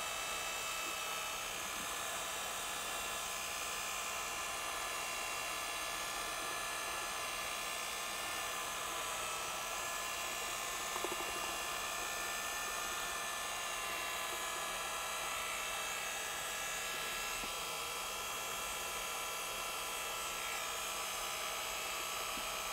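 Electric drill with a mixing paddle running steadily in a plastic bucket, blending urethane cement slurry with its cement aggregate filler, a constant motor whine with a brief knock about halfway through.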